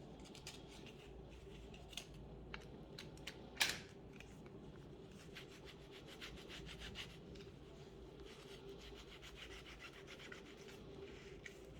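Faint scraping and light clicking of a tool working on a Samsung Galaxy S20+'s cracked back glass, with one sharper click about three and a half seconds in, over a steady low hum.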